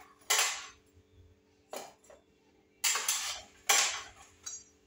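A slotted metal spoon scraping and clinking against a metal baking pan as baked scones are lifted off it, four short scrapes about a second apart.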